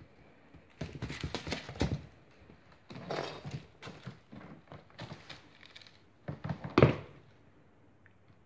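Bengal kitten's paws thumping and scrabbling on a wooden floor and against a sisal scratching tower as it leaps and pounces, in four short bursts of quick knocks, the loudest near the end.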